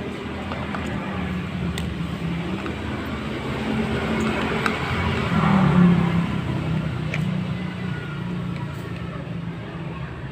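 Maktec MT90 angle grinder running steadily, swelling louder about halfway through and then easing, with a rough snoring sound that is blamed on a burnt armature.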